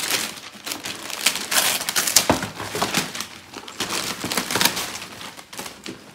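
Gift-wrap paper being torn and crumpled off a toy box in a quick run of crackling rips. There is a dull thump a little over two seconds in.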